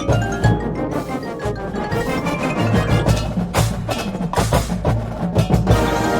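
Drum and bugle corps playing a loud passage: brass with marching drums and front-ensemble mallet percussion, struck notes over sustained chords.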